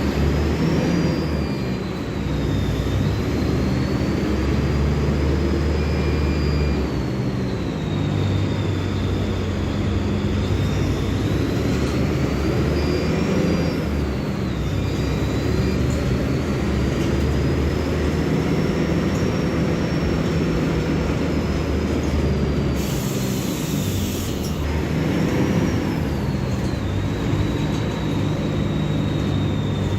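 Mercedes-Benz OF-1724L Bluetec 5 bus engine running under way, its rumble changing pitch every several seconds as it pulls through the gears, with a high whine that rises and falls along with it. A short hiss of air comes about three-quarters of the way through.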